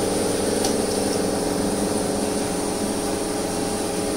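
Soda fountain machine running, with a steady motor hum and hiss, while plain carbonated soda pours from a dispensing valve into a glass.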